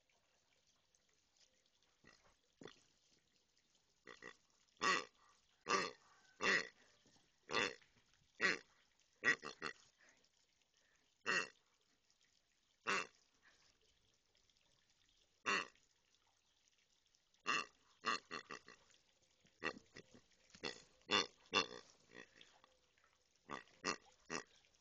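Grey rubber pig dog toy giving out short pig-grunt noises each time it is squeezed. There are about twenty separate grunts at irregular intervals, beginning about four seconds in.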